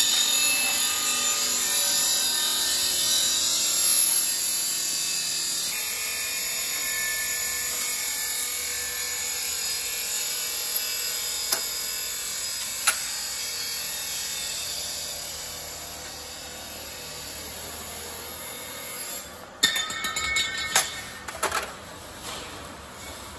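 Steady hiss-like noise of a steel exhaust pipe being worked at a shop machine, dropping off after about two-thirds of the way, then a few sharp metal clinks near the end as the pipe is handled in the bending machine.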